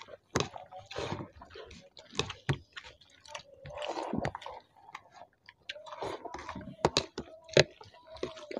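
Two people eating rice and vegetable curry with their hands: close, wet chewing and lip-smacking, with fingers squishing rice in the trays, heard as a stream of short irregular smacks and clicks.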